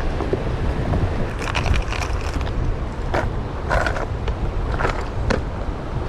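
Strong wind buffeting the microphone in a steady low rumble, with scattered clicks and rattles of a fishing lure and tackle case being handled while the lure is changed.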